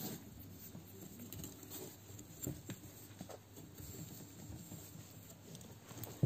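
Faint, scattered small sounds of seven-day-old Lagotto Romagnolo puppies stirring on the bedding, with a single sharp click near the end.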